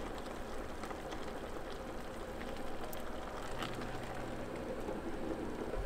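Diced aubergine and courgette sizzling in a pot over a portable gas stove: a steady, even sizzle.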